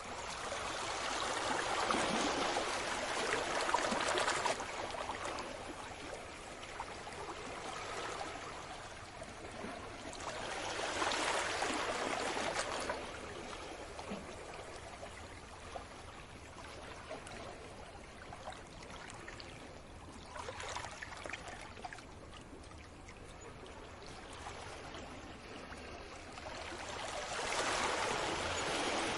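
Small sea waves washing onto the shore and draining back, the hiss of the wash swelling and fading four times.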